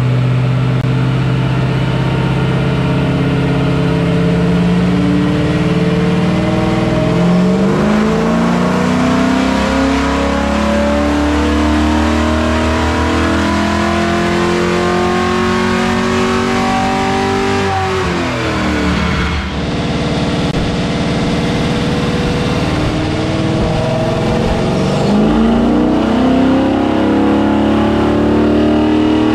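Cammed LS V8 with headers in a 1994 GM OBS pickup, making a wide-open-throttle pull on a chassis dyno. The engine note climbs steadily in pitch under load for about eighteen seconds, then drops sharply as the throttle closes. Near the end it begins climbing again.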